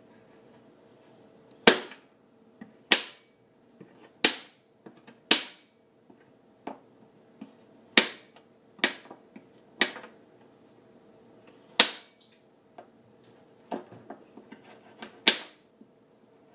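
Knife chopping cherries: sharp, uneven knocks of the blade striking the hard surface beneath, about a dozen, each with a brief ring.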